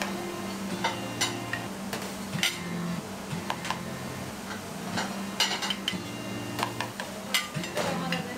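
A metal spoon and saucepan clinking against porcelain plates as sauce is spooned onto them: a string of sharp, irregular clinks, several a second at times.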